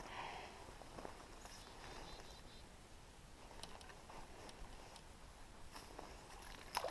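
Faint handling sounds of an ultralight spinning rod and reel being fished, with scattered light clicks, a brief fast ticking of the reel, and a sharper click near the end.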